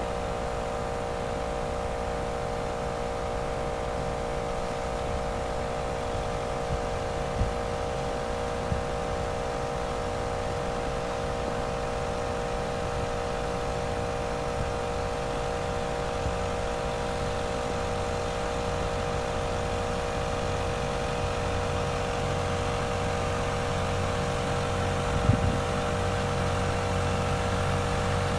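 Tractor engine running steadily as it pulls a working boom sprayer, a droning hum that grows slightly louder as it comes closer. A few short knocks, likely wind or handling on the microphone, near the end.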